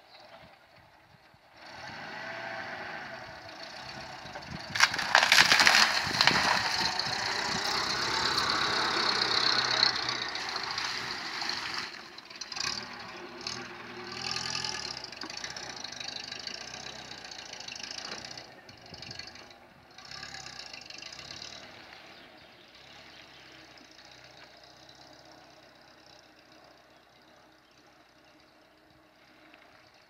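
UAZ-452 'Bukhanka' van's engine pulling hard through deep mud, loudest in the first half, with a brief clatter about five seconds in, then easing to a steadier, quieter run.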